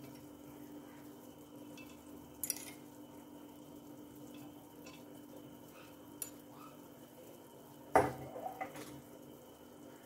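Long metal spoon stirring a glass jug of juice and ice cubes: a few light clinks, then a louder clatter of spoon and ice against the glass about eight seconds in, over a steady low hum.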